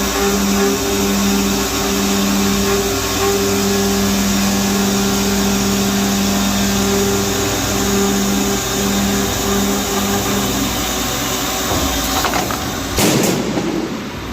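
Industrial cutting machine working on forged steel: a loud, steady hiss over a low hum that comes and goes. About a second before the end there is a brief louder burst, then the machine noise drops.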